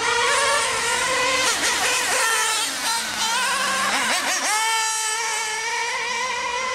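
Nitro radio-controlled cars racing, their small glow-fuel engines making a high-pitched whine that wavers up and down with the throttle. About four and a half seconds in, the pitch jumps up and holds a steady high note at full throttle.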